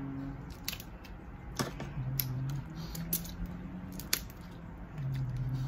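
Dungeness crab shell being cracked and picked apart while eating: a few sharp, scattered clicks and snaps, the loudest about four seconds in.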